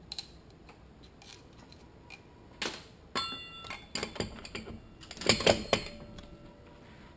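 Steel transmission parts clinking and clanking as a sun gear is set down into a Toyota A340 automatic transmission case. There are scattered light clicks, a brief ringing ping about three seconds in, and a cluster of louder clanks about five seconds in.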